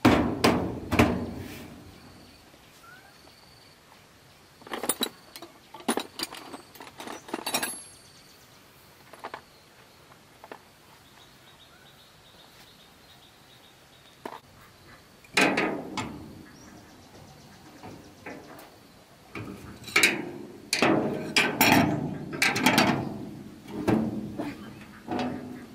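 Knocks, thuds and clanks from the sheet-metal drum housing of a stopped rice threshing machine as it is handled and climbed on, coming in scattered clusters with quiet gaps between them.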